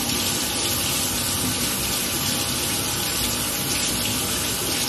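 Bathroom sink tap running steadily, the water splashing over hands as mask gel is washed off them.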